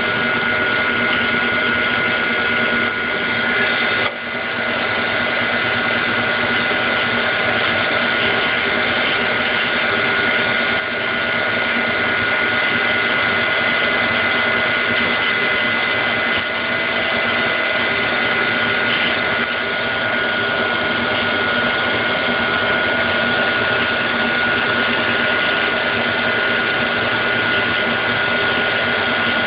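Compressor of a Daikin (McQuay) EWLDJ235-SS chiller running with a steady mechanical noise and a constant high-pitched whine over it, a sound the owner finds strange.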